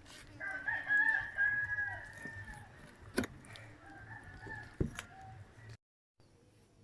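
A rooster crowing once in the background, one long call lasting about two seconds. Two sharp knocks follow, a knife striking the wooden chopping board as the fish is cut.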